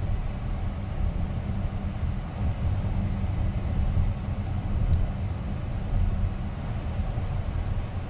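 Low, steady road and tyre rumble heard inside the cabin of a Chrysler Pacifica minivan cruising at an even speed.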